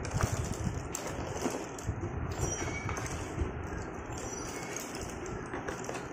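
Slate pencils clattering and clicking against one another as hands stir and sift through a box heaped with them, a continuous run of many small clicks and scrapes.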